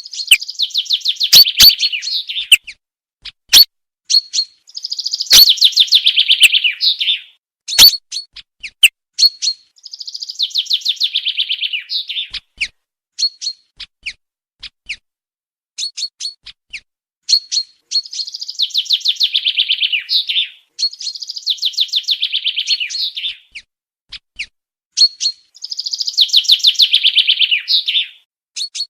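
Common chaffinch singing: about six rapid trilled song phrases of roughly two seconds each, falling in pitch, with short sharp single calls between them.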